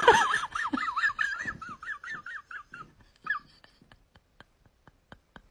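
A cat's threatening growl-yowl that opens with a hiss, its pitch wavering quickly up and down, then trailing off after about three seconds. Faint regular ticks follow, about three a second.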